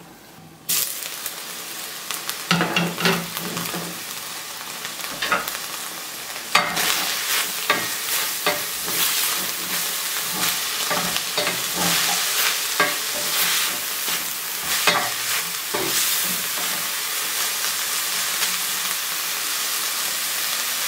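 Minced meat and onions sizzling in a stainless steel frying pan, with a wooden spatula stirring and scraping against the pan. There is a sharp clink about six and a half seconds in, and after it the sizzling is louder.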